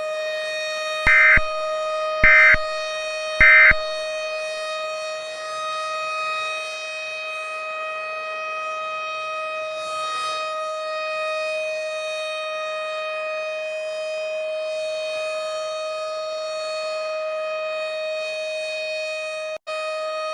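Tornado warning siren sounding a steady alert on one held pitch. Three short, loud electronic beeps about a second apart sound near the start, and the tone drops out for a moment near the end.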